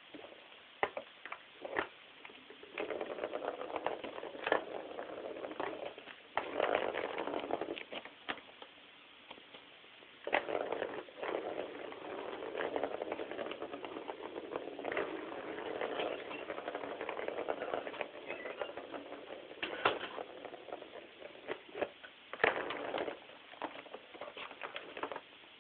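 A cat clawing at a round cardboard scratch pad, in several long bursts of rasping scratching with sharp clicks and taps between them.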